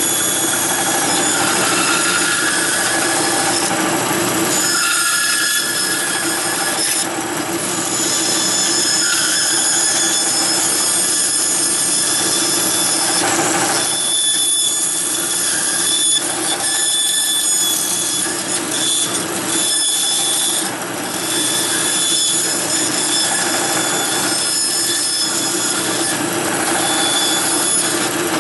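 Bandsaw running steadily, its half-inch blade cutting a series of short, parallel relief cuts into a softwood block. The machine's steady hum carries throughout, with a few brief dips in loudness between cuts.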